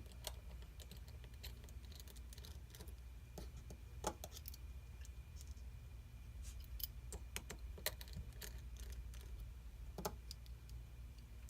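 Scattered light clicks and taps of a precision screwdriver working tiny Phillips screws out of a smartphone's frame and setting them down, over a steady low hum.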